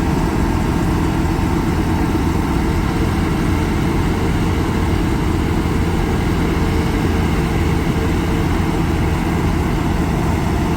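Large farm diesel engine running steadily under constant load, a deep even drone with no change in speed.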